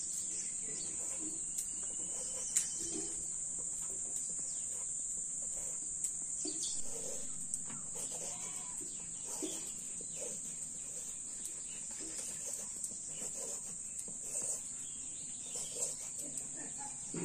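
Steady high-pitched drone of insects, with short bird calls scattered through it and a few faint clicks.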